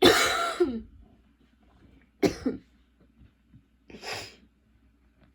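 A girl coughing in a coughing fit: one long, loud cough at the start, a shorter double cough about two seconds later, then a breath a little before the end.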